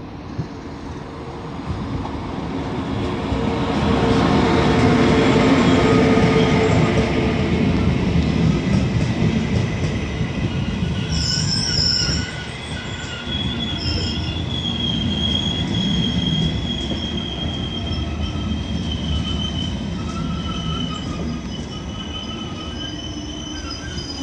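A Deutsche Bahn ICE high-speed train running into the station past the platform, with loud rolling wheel noise. From about halfway through, steady high-pitched brake and wheel squeal joins in as it slows.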